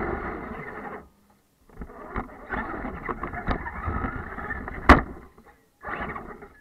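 Electric RC monster truck driving through snow, recorded close by: a rumbling, rattling run of motor, drivetrain and tyres in snow that stops and starts, with several knocks and one sharp, loud crack about five seconds in.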